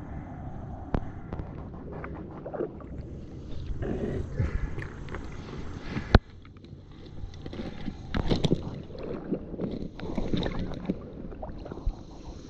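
River water splashing and sloshing against a small inflatable float as it is moved through shallow water, with a few sharp knocks, the loudest about six seconds in.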